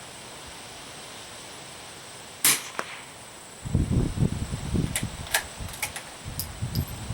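A single .22 LR rifle shot from a Remington 513T bolt-action target rifle, one sharp crack about two and a half seconds in. Wind then buffets the microphone with an uneven low rumble, and a few light clicks follow.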